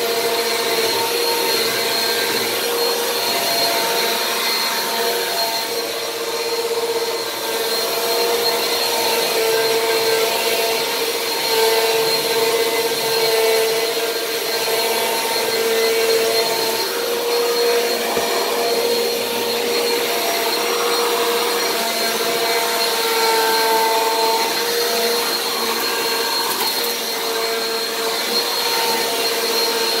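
Bissell PowerForce Compact (model 1520) bagless upright vacuum running steadily while being pushed back and forth across a hard floor. Its motor gives a constant whine over a rushing airflow.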